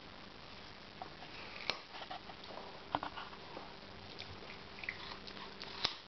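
Husky puppy chewing a raw carrot, with scattered sharp crunches, three of them louder than the rest.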